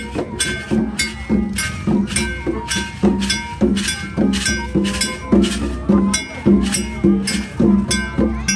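Traditional Khmer procession music led by percussion: metallic strikes that ring on after each hit, over low drum or gong beats, in a steady rhythm of about two beats a second.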